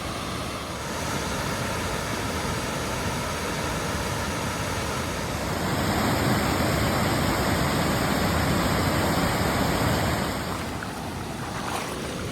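Waterfall: a steady rush of falling water, louder for several seconds in the middle.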